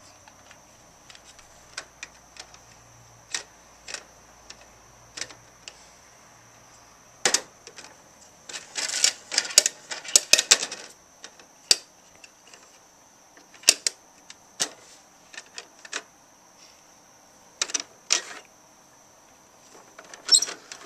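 Hard plastic clicking and clattering from a Bruder toy garbage truck's rear bin lifter and small toy bins being handled: single sharp clicks about a second apart at first, then a burst of rattling about halfway through as the lifter tips the bins, and a few more clicks later.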